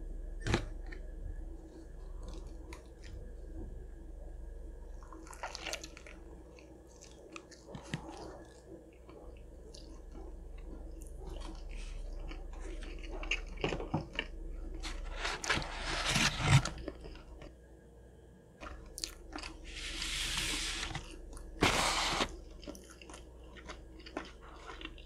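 Close-miked biting and chewing of a grilled chicken club sandwich (grilled chicken, bacon, cheese, lettuce and tomato on a bun). Soft clicks and chews run throughout, with a few louder bursts in the second half.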